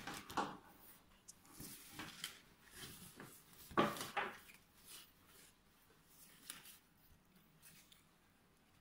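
Rustling and handling of black lycra cycling shorts and their paper hang tags, in irregular faint bursts, loudest about four seconds in.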